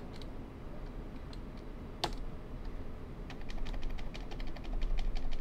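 Computer keyboard keys clicking: one sharp keypress about two seconds in, then a quick, growing run of taps, a key pressed over and over during the PC's boot to call up the F12 boot menu.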